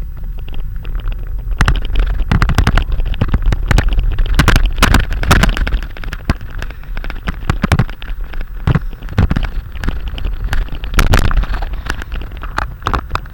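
Strong wind buffeting the microphone: a constant heavy low rumble with many sharp crackles and pops, thickest through the middle and easing a little near the end.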